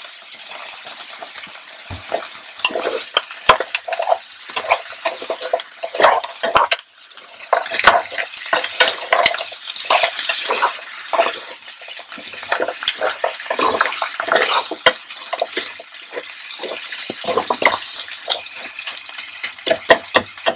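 Chicken, mushrooms and stir-fry vegetables sizzling in an electric skillet while a spoon stirs them, with repeated scrapes and clicks against the pan. The stirring pauses briefly about seven seconds in.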